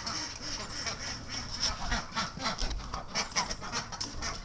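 A flock of domestic geese and ducks calling constantly, many short calls overlapping in a continuous din.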